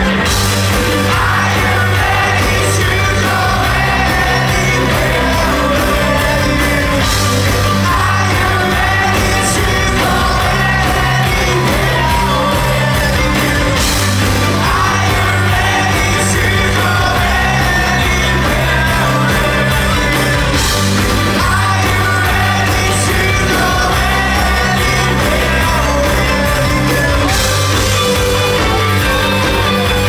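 Rock band playing loud live with a lead singer: bass, guitars and drums under the vocal, with a crash cymbal hit every six or seven seconds.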